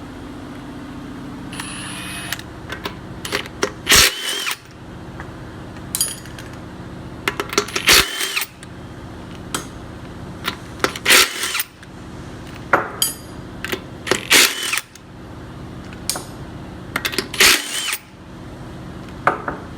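Impact wrench running off the wheel's lug nuts in five short bursts, about three to four seconds apart, over a steady low hum.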